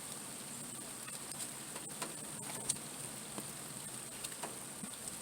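Faint handling sounds as a handmade trifold wallet is unfolded: soft rustles and a few small scattered taps and clicks over a steady hiss.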